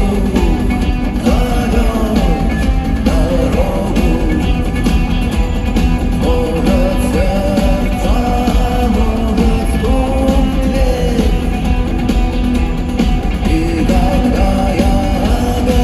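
Rock band playing live in an arena with drums, electric guitars and a sung lead vocal, recorded from the audience on a phone.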